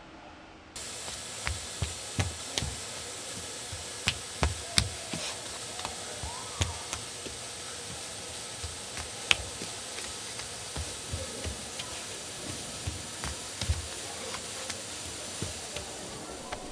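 CNC router spindle running and milling a pocket into a sheet: a steady high hiss with many irregular sharp clicks and knocks. It starts abruptly under a second in.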